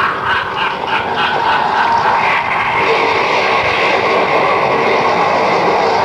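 Spooky Halloween sound effects played from a vintage sound-effects cassette: a dense, noisy mix that opens with a quick run of short, sharp repeated sounds, about five a second, for the first second and a half.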